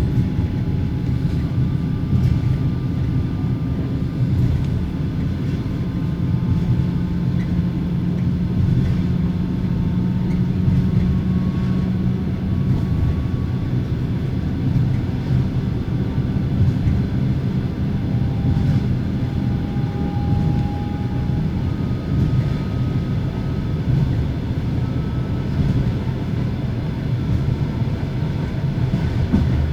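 Steady running sound inside a compartment passenger car at an even speed: the low rumble and knocking of the wheels on the rails, with a faint, even whine from the carriage's axle-driven generator. The compartment door and the corridor window are open, letting in more of the track noise.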